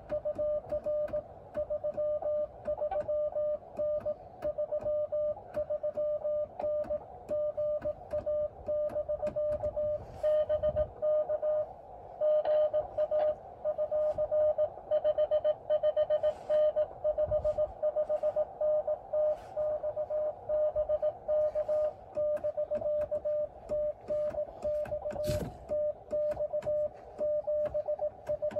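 Morse code (CW) from an amateur radio transceiver: a single steady beep keyed on and off in dots and dashes, over a narrow band of radio hiss. A few soft knocks come through about ten, seventeen and twenty-five seconds in.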